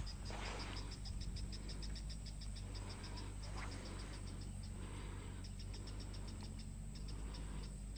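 Rapid high chirps from a small calling animal, about six a second, in runs of a couple of seconds with short pauses between them.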